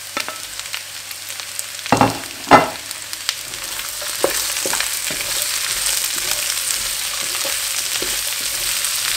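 Vegetables sizzling in a hot wok as they are stir-fried, the spatula scraping and tossing them, busier and louder from about four seconds in. Two sharp knocks come about two seconds in.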